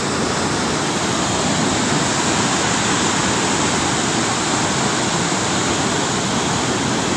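Heavy, muddy river water rushing through the open gates of a barrage and churning below them, a loud, steady rush with no letup.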